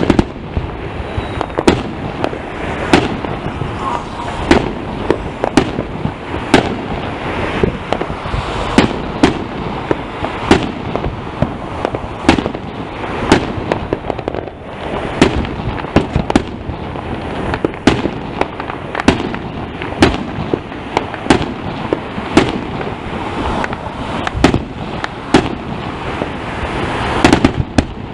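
Fireworks going off: a steady, irregular string of sharp bangs, about one to two a second, over a constant background din.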